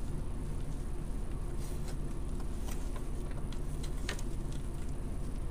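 Hands working deco mesh and pipe cleaners on a wreath frame: a few faint crinkles and clicks, the clearest about four seconds in, over a steady low hum.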